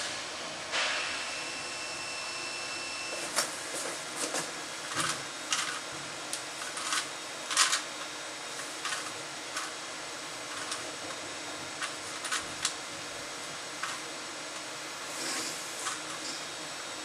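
ABB YuMi robot at work: a brief high motor whine, then irregular clicks and clacks of its grippers handling and turning a Rubik's Cube, over a steady hiss.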